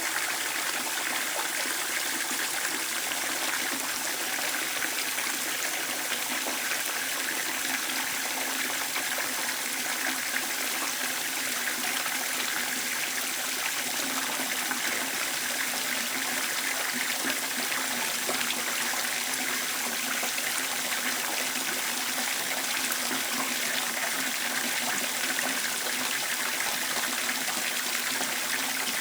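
Water running steadily, an even unbroken splashing rush that does not change.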